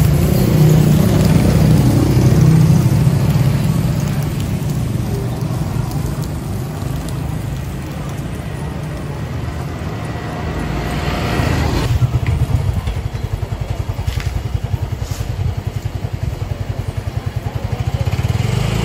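Motorcycle engines running on a street; in the second half an engine runs close by with a steady, even throb.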